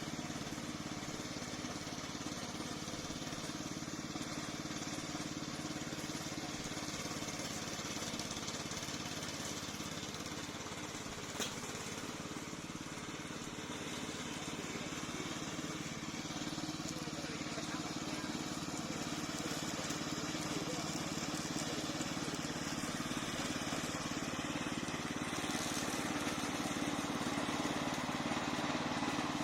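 Gasoline engine of a remote-control lawn mower running steadily, growing slightly louder over the second half, with one brief click about 11 seconds in.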